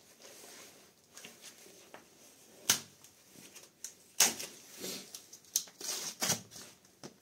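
Packaging being handled as a 35 mm self-cut spade drill bit is taken out of its box: soft rustling broken by several sharp clicks and snaps, the loudest a little under three seconds in and again just past four seconds.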